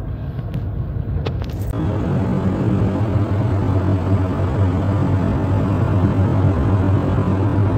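Steady engine and tyre noise inside a car's cabin at motorway speed, with a strong low hum. It starts abruptly about two seconds in, after a short stretch of low street rumble with a few sharp clicks.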